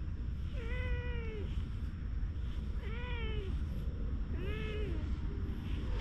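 Domestic cat meowing three times, each call about half a second to a second long and rising then falling in pitch, with a fourth meow starting at the very end.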